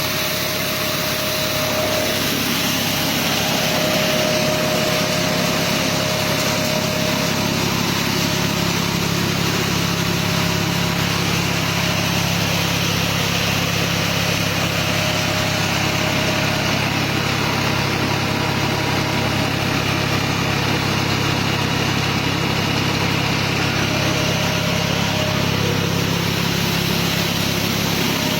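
Hasatsan H2200 hazelnut harvesting machine running steadily: an engine hum over a continuous hiss.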